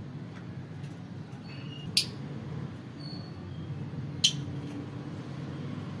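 Lovebirds giving two short, sharp, high-pitched chirps about two seconds apart, with a few faint peeps between, over a steady low hum.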